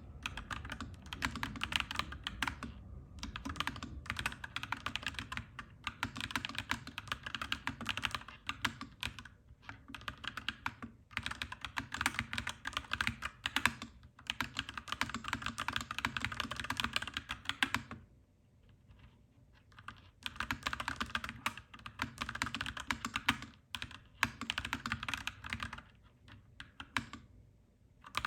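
Clacky mechanical keyboard being typed on in fast bursts with brief pauses between them, over a low steady rumble that eases off about two-thirds of the way in.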